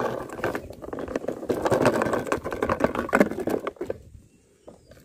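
Gritty crunching and scraping of stones and dirt, with many small clicks, for about four seconds, then stopping.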